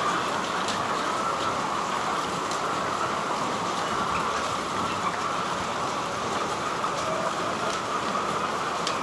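Continuous massed chatter of a large flock of chickens in a poultry house, a steady dense din with no single call standing out.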